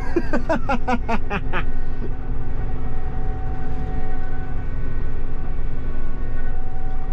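Combine harvester running while driving: a steady low engine rumble with a constant drivetrain whine, heard from inside the cab. A man's voice is heard over it for the first second or so.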